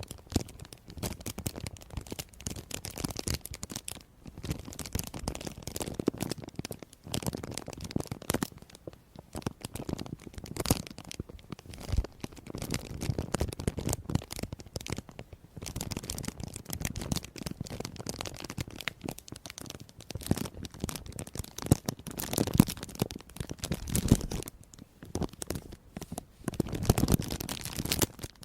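Close-up crisp crackling and crinkling, a dense run of irregular crackles broken by short pauses every few seconds.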